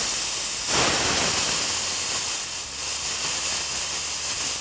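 High-pressure air hissing out of the bleed valve on a Daystate 4500 psi 110-volt airgun compressor's fill line, venting the residual pressure left after filling a tank to about 4,500 psi. The hiss is loud and steady, surges briefly about a second in, then slowly tapers off.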